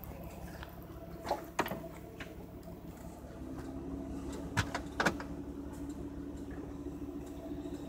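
Handling knocks and clunks around a Mercedes C280's open trunk: two sharp knocks a little after a second in and two more near the middle. A steady low hum starts about three and a half seconds in.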